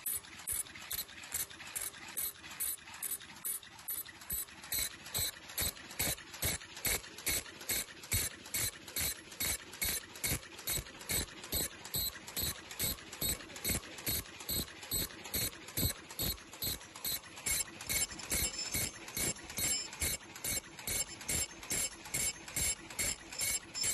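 Automatic 3-ply surgical mask making machine running, its mechanisms clacking in a steady rhythm of about two to three strokes a second.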